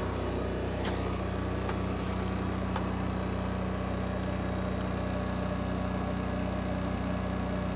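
Onan 2500 LP propane generator running steadily, heard from inside the truck camper: an even, low engine hum that is pretty quiet, with little rattle, shortly after a cold start.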